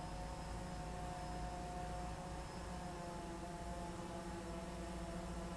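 DJI Phantom 3 Standard quadcopter hovering overhead, its propellers giving a steady whine of a few held tones over a low hum.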